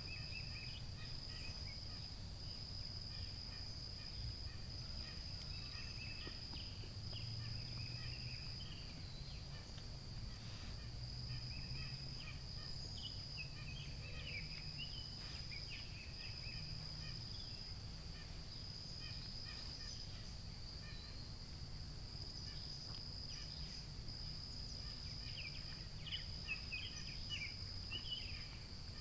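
A steady, high-pitched summer insect chorus trilling without pause, with scattered short bird chirps and a low background rumble.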